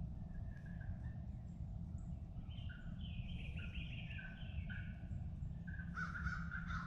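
Birds calling in woodland: a run of quick, high notes in the middle and repeated lower calls near the end, over a steady low rumble.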